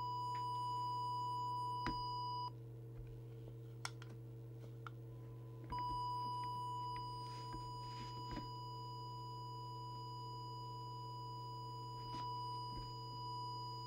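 Steady test tone from an audio oscillator modulating the CB transmitter while its FM deviation is measured. The tone breaks off about two and a half seconds in and comes back about three seconds later. A steady low hum runs underneath, with a couple of faint clicks.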